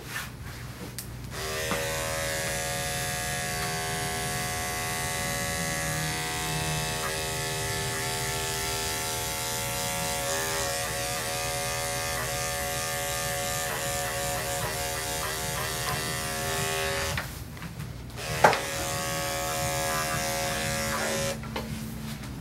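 Corded electric dog-grooming clippers switch on about a second and a half in and run with a steady hum while trimming the dog's face, the hum wobbling now and then. They switch off, a sharp knock follows, then they run again briefly and stop near the end.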